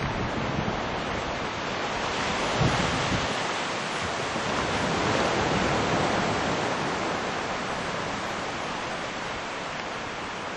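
Wind rushing over the camera microphone: a steady noisy rush that swells a little midway, with a few low buffeting thuds near the start.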